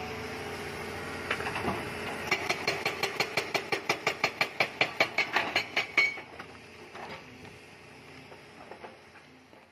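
Hydraulic breaker on a Doosan DX200A excavator hammering rock in a rapid, even series of blows, about six a second, over the excavator's running diesel engine. The hammering starts about two seconds in and stops about six seconds in, leaving a faint engine hum.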